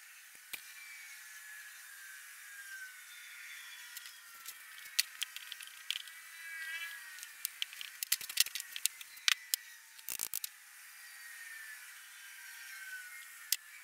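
Scattered sharp clicks and knocks, mostly in the middle stretch, from hands working a wooden sand-casting flask and its metal sprue pins.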